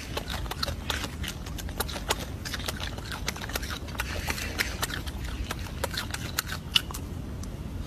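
Golden snub-nosed monkey eating and picking at fruit close to the microphone: irregular small clicks and crackles from chewing and handling the fruit, over a steady low rumble.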